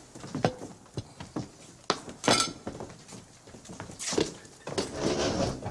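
Plates and cutlery knocking and clinking as a meal is carried in and set down on a table, in a run of short sharp knocks. The loudest clatter comes about two seconds in.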